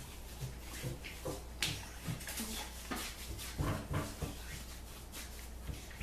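Hands rubbing and patting aftershave onto the face and neck: a string of soft skin slaps and rubs, busiest about three and a half seconds in.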